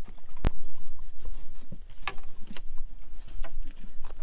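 Handling noises on a small fishing boat while a caught fish is unhooked: one sharp click about half a second in, then scattered lighter taps and knocks, over a low rumble of wind on the microphone.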